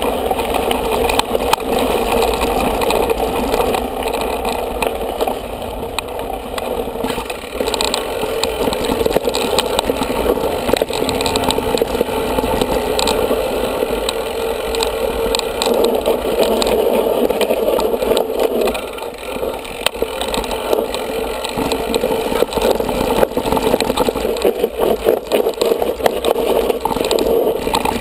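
Mountain bike riding over a gravel forest road and then a rough dirt singletrack, heard close up from the rider's own bike: a steady rumble of tyres and frame, with constant rattling clicks from the bumps.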